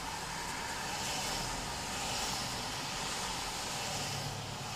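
Tyres of passing cars hissing on a rain-soaked road, mixed with steady rain, heard from inside a parked car. The hiss swells as each car goes by.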